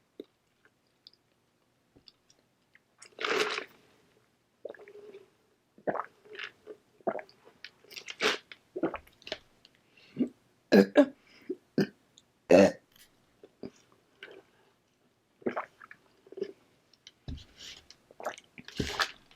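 Close-miked chewing of a burger: irregular wet mouth smacks and clicks, starting about three seconds in.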